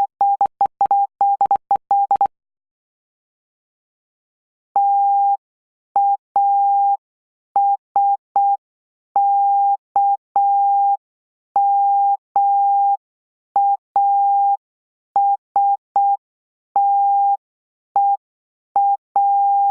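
Morse code sent as a single steady beep tone keyed on and off in dots and dashes: a fast run in the first two seconds, then after a short pause a slower, evenly spaced run of dots and dashes that carries on to the end.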